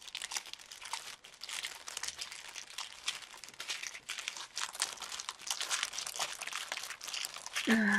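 Clear plastic crinkling and crackling as hands handle a strip of small bags of diamond painting drills and press them against the plastic sheet covering the canvas. It goes on as a steady run of irregular crackles.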